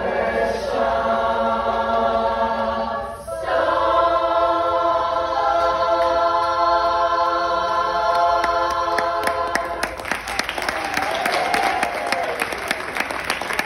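Women's a cappella chorus singing two long held chords, with a short break about three seconds in. About ten seconds in, applause breaks out as the song ends.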